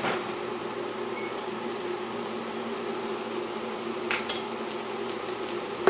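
Induction cooker humming with a steady buzz under a wok, with a faint sizzle of cauliflower and onion sautéing. A brief light tap about four seconds in.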